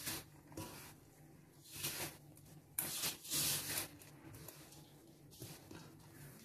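A hand mixing maida flour into dough in a steel bowl: a series of short rustling, scraping strokes of fingers through the flour and against the bowl, the longest and loudest around the middle.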